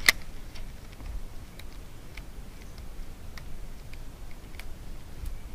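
One sharp click, then faint, scattered ticks roughly once a second from a baitcasting reel and rod as a lure is twitched and retrieved. A low rumble of wind and handling runs underneath.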